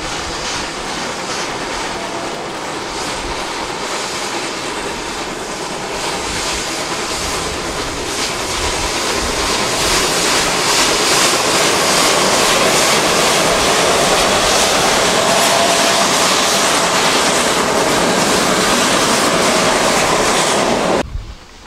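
Narrow-gauge steam locomotive working a train of wagons past, its steam exhaust and the rumble of the wagons' running gear growing louder, loudest through the second half. The sound cuts off abruptly near the end.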